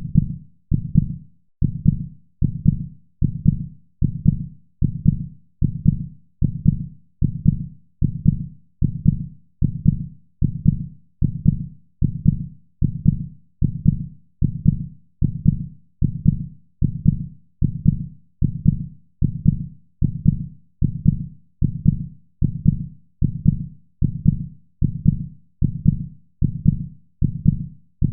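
Human heartbeat, a slow, steady lub-dub of low, muffled thumps repeating about every one and a half seconds.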